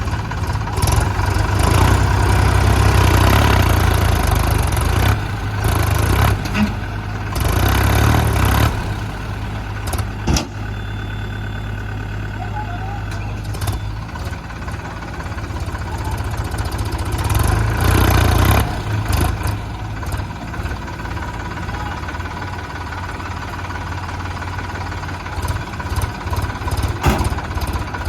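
Diesel engine of a JCB 3DX backhoe loader running, getting louder for a few seconds at a time, three times, as it revs under load.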